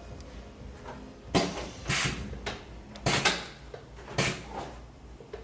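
Short knocks and rustles of a patient being moved and stretched on a chiropractic treatment table, about six separate bumps in four seconds, the loudest about a second and a half in and again around three seconds.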